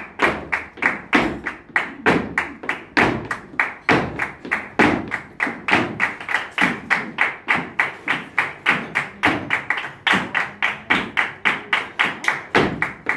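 Flamenco footwork and palmas: heeled dance shoes stamping and hands clapping in a fast, even rhythm of about four to five strikes a second.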